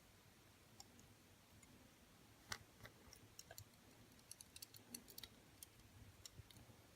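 Faint, scattered small clicks and taps of tiny diecast toy-car parts (wheels, axles, body) being handled during a wheel swap, over near silence.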